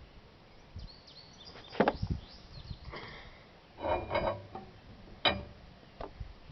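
A few separate metallic clanks and clinks, some with a short ring, from parts and tools being handled during work on a truck's rear axle. They come as one knock about two seconds in, a cluster near the middle, and a sharp clink near the end.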